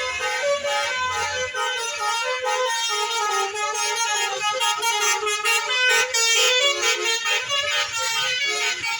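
Bus 'telolet' musical air horn playing a quick melody, its notes stepping up and down in pitch without a break.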